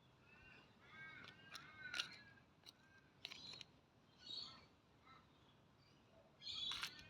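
Faint bird calls, a quick run of short arched notes in the first couple of seconds, with scattered small clicks and rustles of objects being handled close by.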